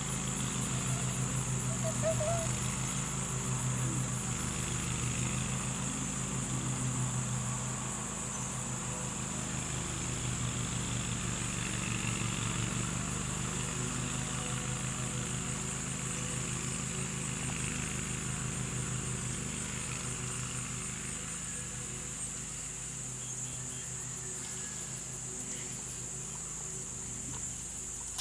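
A steady low engine hum, like an idling vehicle, that gets quieter over the second half, under a constant high-pitched drone of insects.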